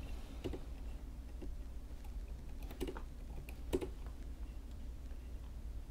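Typing on a computer keyboard: a few scattered keystrokes, the clearest about three and four seconds in, over a faint steady low hum.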